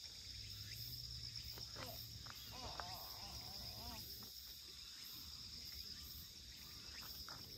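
Faint, steady woodland insect chorus, a continuous high shrill with an even pulsing, with a few short warbling chirps about three seconds in.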